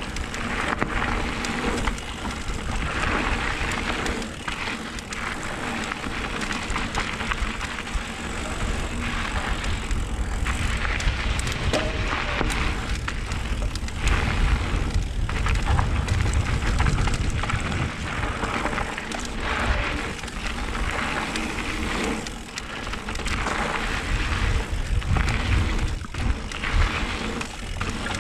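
Mountain bike ride heard through a helmet- or bike-mounted GoPro: wind rushing over the microphone and knobby tyres rolling over a dirt trail, with low buffeting that swells and fades, strongest near the middle.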